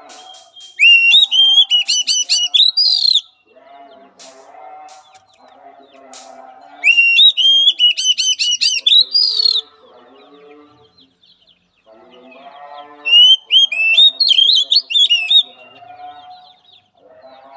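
Oriental magpie-robin singing: three loud phrases of rapid, varied whistled notes, each lasting about two and a half seconds, with pauses between them. Fainter, lower chattering notes fill the gaps.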